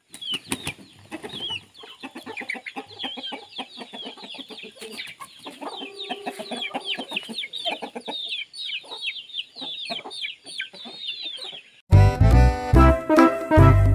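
Free-range village chickens calling: a dense, continuous run of short, high, falling peeps and chirps, with a longer, lower call about six seconds in. Music with a steady beat cuts in abruptly near the end.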